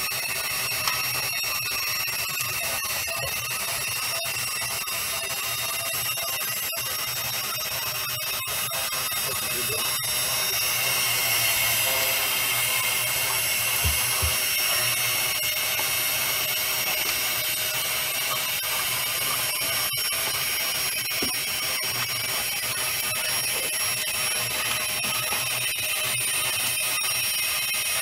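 Small electric drive motors of a pipe-crawling robot whining steadily as it travels inside a metal pipe, with several fixed high tones over a noisy hiss, a little louder around the middle.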